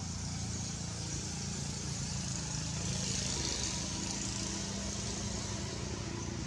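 A steady low mechanical hum, like an engine idling, under a high hiss that swells about three seconds in and fades again.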